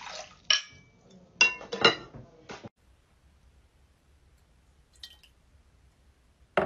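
Ceramic bowls and dishware clinking: four sharp clinks in the first three seconds, then quiet, and another sharp knock at the very end.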